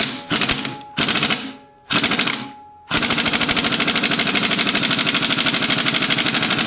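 Pneumatic impact wrench hammering on a 22 mm crankshaft pulley bolt: a few short bursts, then from about three seconds in a continuous rapid hammering. It runs on too little air pressure from the compressor tank, so the bolt does not break loose.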